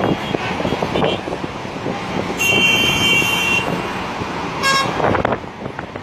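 Busy road traffic with car horns honking: one horn held for about a second a little past two seconds in, and a shorter honk near five seconds.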